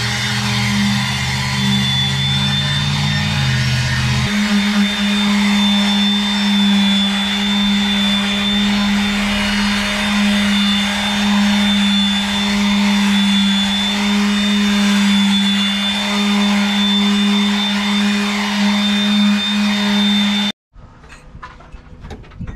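Electric quarter-sheet palm sander running steadily as it sands the finish off a wooden cabinet top, a loud even hum with a hiss. A lower hum underneath drops out about four seconds in, and the sound cuts off suddenly near the end.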